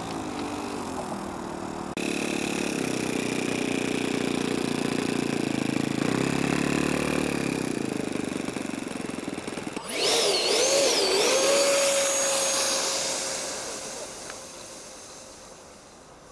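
RC model aircraft motors running. First a propeller-driven Focke-Wulf Fw 190 model's motor and propeller, with a steady high whine on top. Then, about ten seconds in, the F-18 model's 64 mm electric ducted fan whines, wavering up and down in pitch with throttle blips before holding steady and fading away.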